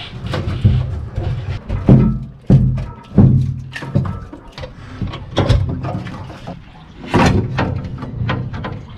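Background music with sharp percussive hits over a steady low bass.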